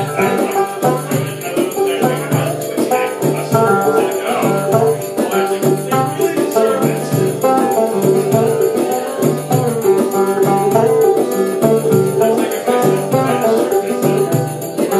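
Banjo played live in an improvised piece over a steady, repeating drum loop.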